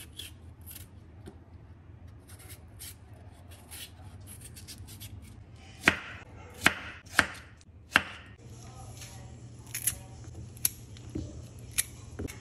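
Kitchen knife cutting a peeled green vegetable on a wooden cutting board. Light slicing strokes come first, then four sharp chops of the blade against the board midway, then a few lighter cuts near the end.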